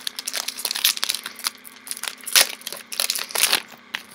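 Yu-Gi-Oh booster pack's foil wrapper crinkling and tearing as it is opened by hand, a dense run of sharp crackles that eases off near the end.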